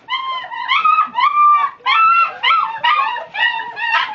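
A litter of five-week-old black German shepherd puppies whining and yelping together, many high cries overlapping without a break: hungry puppies begging to be fed.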